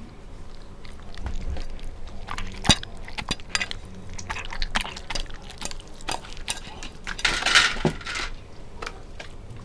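A Siberian husky licking a plate clean: wet lapping with the plate clinking and knocking as it is pushed about. There is a sharp knock about three seconds in and a louder stretch of licking and scraping near the end.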